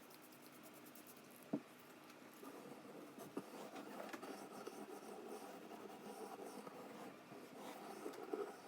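Faint scratching and rubbing from hand work on a classical guitar, with one sharp tap about a second and a half in; the scratching grows busier from about two and a half seconds on.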